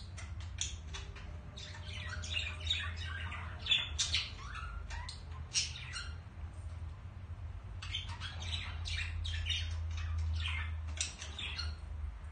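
Budgerigars chattering in rapid short chirps and squawks, the warbling of a courting pair, with a pause of about a second and a half just past the middle.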